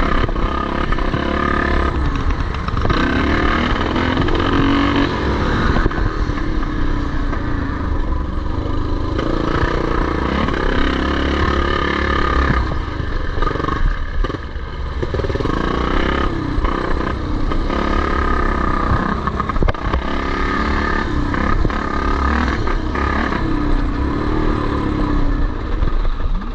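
Several vintage motocross motorcycles racing, their engines revving up and falling back as they pass through the track sections.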